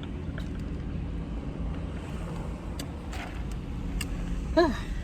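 Sips from a cold Sprite over the steady low hum of a car interior, with a few small clicks and a short vocal sound near the end.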